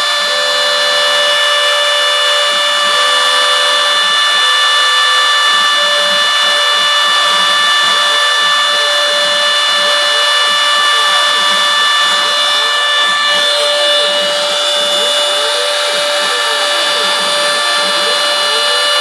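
A router spindle on a CNC mill runs at a steady high-pitched whine while its small bit cuts cavities in florist foam. Lower tones rise and fall repeatedly beneath the whine from about six seconds in.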